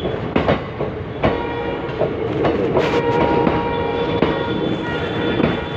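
Indian Railways ICF passenger coach running at speed, its wheels clattering over rail joints in an uneven clickety-clack of sharp knocks, a few a second, over a steady rolling rumble.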